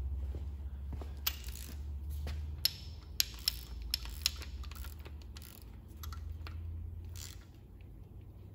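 Ratchet and socket working a rocker-arm adjusting nut on a small-block Chevy 350, giving a scattering of sharp metallic clicks over a few seconds as the intake valve is brought to zero lash, over a low steady hum.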